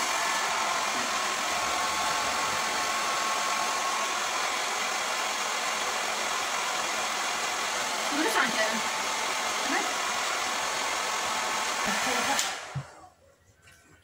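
Hand-held hair dryer with a diffuser attachment blowing steadily while drying hair, then switched off and cutting out abruptly near the end.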